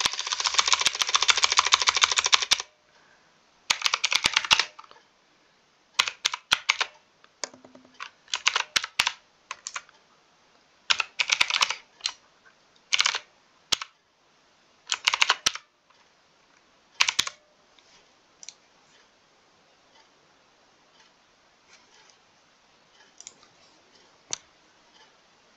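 Typing on a computer keyboard: a quick, dense run of keystrokes at the start, then short bursts of keys up to about two-thirds of the way through, thinning to a few faint single clicks near the end.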